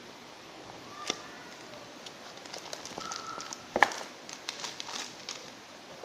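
Packaging being handled during an unboxing: rustling with a run of small clicks and taps, a sharp click about a second in and the loudest knock a little before four seconds in.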